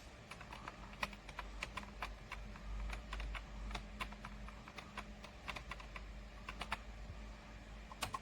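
Typing on a computer keyboard: irregular keystroke clicks, clustered between about one and seven seconds in, with one more near the end.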